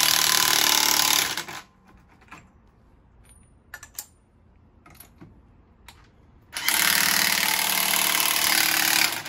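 Impact wrench hammering in two bursts. One is already running and stops about a second and a half in; the other starts about six and a half seconds in and lasts some two and a half seconds, with a few faint clicks and knocks between. Typical of lug nuts being run tight on a freshly mounted wheel.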